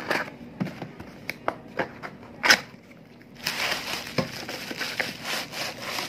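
Cardboard parcel torn open by hand: packing tape and cardboard flaps pulled apart with sharp snaps and one loud tear about two and a half seconds in, then bubble wrap rustling and crinkling as the package is pulled out.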